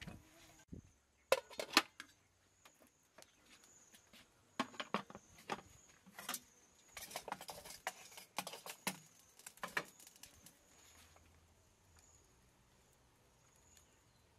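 Aluminium steamer pot and lid knocking and clattering as they are handled: a run of sharp clicks and taps that stops about ten seconds in.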